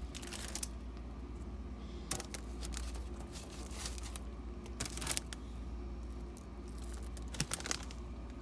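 Paper sandwich wrapper crinkling in short, scattered bursts as the sandwich is handled, over a steady low hum.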